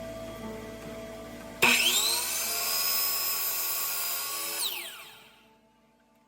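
Electric power tool motor starting suddenly, spinning up to speed, running steadily for about three seconds, then winding down and fading out.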